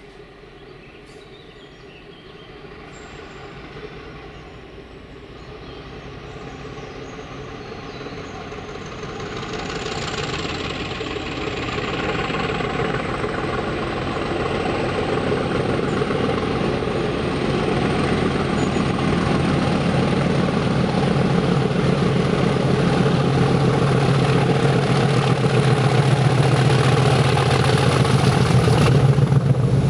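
English Electric Class 50 diesel locomotive working hard as it approaches hauling a train of coaches. Its 16-cylinder engine grows steadily louder, with a high whine above it, and is loudest as it passes close underneath near the end.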